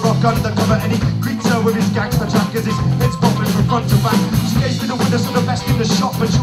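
Live band music with drums and a steady bass line, under a man's voice rapping into a handheld microphone.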